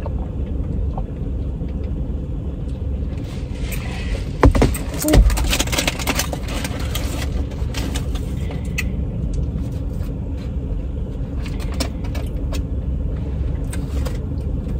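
A steady low rumble, with bursts of clicking and crackling from plastic food containers being handled and food being eaten, busiest between about 4 and 9 seconds in.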